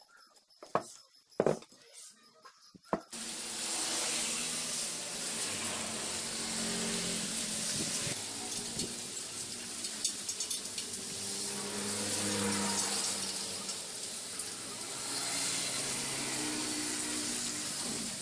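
A few sharp metal clicks as steel wire spokes are handled and seated in a motorbike wheel hub. About three seconds in, the sound cuts to a steady hiss of background noise with faint murmuring voices under it.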